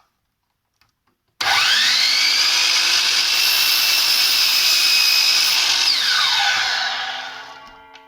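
DeWalt mitre saw starting up about a second and a half in, its motor whine rising fast to full speed, then running loud and steady as the blade cuts through a piece of wood. Near the end the saw is switched off and winds down with a falling whine.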